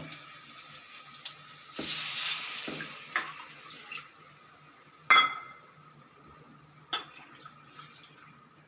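Tamarind water poured into a pan of frying masala: a splashing sizzle about two seconds in that fades over a second or so. Then a ringing metal clink about five seconds in and a shorter knock near seven seconds, as of a utensil against the pan.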